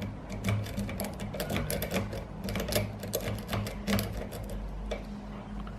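Metal S-rake being scrubbed in and out of a Grand dimple lock cylinder under tension, its spring-loaded pins giving rapid, irregular metallic clicking, over a steady low hum.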